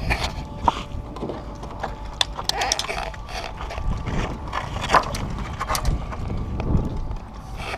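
Irregular sharp clicks and knocks of an airsoft game in play, over a steady hum.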